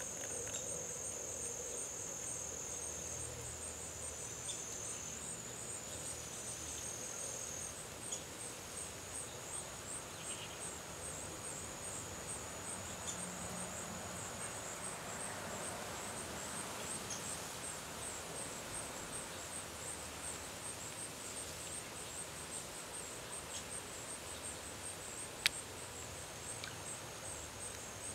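Insects chirping outdoors: a high, even chirp repeating about two to three times a second over a steady high trill, with one sharp click near the end.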